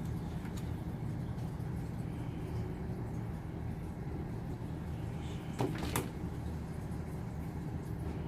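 Two quick sharp clicks, a fraction of a second apart, about two-thirds of the way through, over a steady low background rumble.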